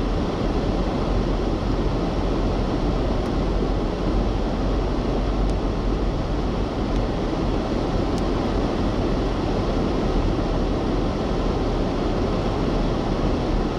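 Steady driving noise inside a car on a wet road: tyres on wet asphalt and a constant low rumble, with no change throughout.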